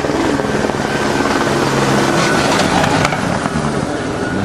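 Loud engine noise running steadily, with a fast, even pulsing.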